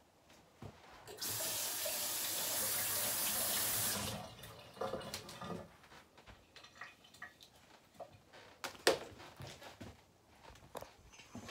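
Kitchen sink faucet running in a steady stream for about three seconds, turned on about a second in and shut off about four seconds in. Then small scattered clicks and rustles, with one sharper click near the end.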